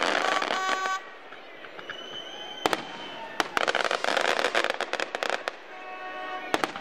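Fireworks going off: a burst of dense crackling at the start, a few single sharp bangs, then a longer spell of rapid crackling from about three to five and a half seconds in.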